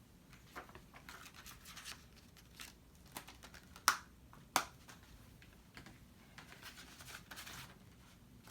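Light scraping and small clicks from a plastic Blu-ray case and its discs being handled, with two sharp plastic clicks about half a second apart near the middle.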